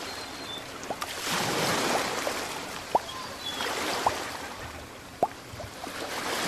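Underwater water ambience, a rushing haze that swells and eases, with short rising bubble blips about once a second.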